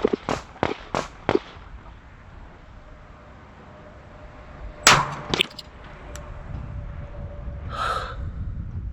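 Gunfire: a quick string of sharp shots in the first second and a half, then a single loud pistol shot from the shooter's CZ P-10 S about five seconds in, followed by a few small clicks. A short clang near the end, with wind rumbling on the microphone.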